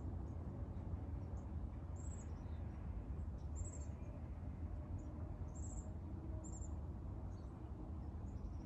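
Faint, short, high-pitched chirps, about one a second from about two seconds in, over a steady low hum.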